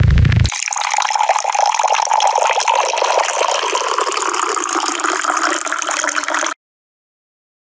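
A short low thud, then a rushing, gurgling water sound effect for about six seconds that cuts off abruptly.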